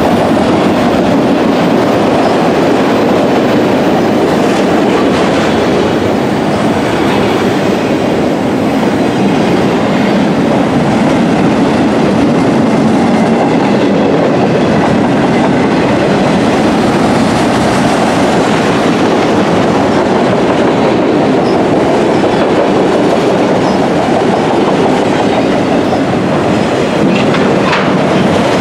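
Autorack freight cars of a CSX train rolling past close by: a loud, steady rumble and clatter of steel wheels on the rails.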